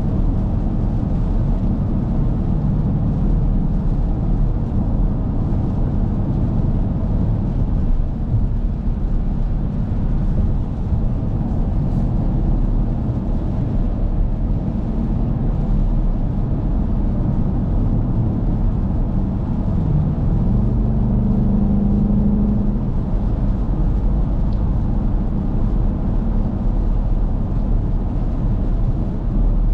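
Cabin noise of a 2023 Dodge Durango R/T Plus cruising at highway speed on a wet road: a steady low hum from the 5.7 Hemi V8 under the rush of tyres on wet pavement. A short droning tone rises out of it about two-thirds of the way through.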